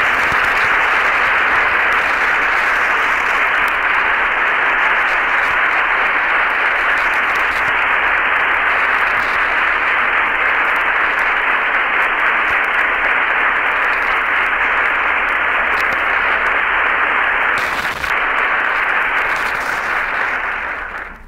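Sustained applause from an audience of cabinet members and White House staff, dense and steady for about twenty seconds, then falling away near the end.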